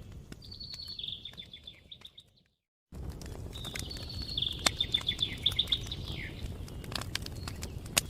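Wood fire crackling with sharp pops over a low rumble, with a songbird singing two trilled phrases of rapid repeated notes. The sound fades out to silence for a moment about a third of the way in and then cuts back in abruptly, like a loop restarting.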